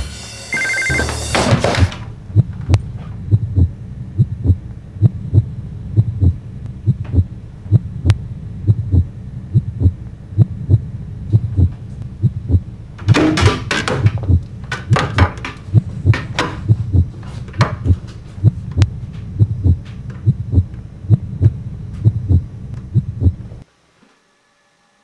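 A telephone rings briefly, then a low, regular thumping pulse like a heartbeat, a little faster than once a second, runs over a deep hum. Short bursts of noise break in around the middle, and the pulse cuts off suddenly near the end.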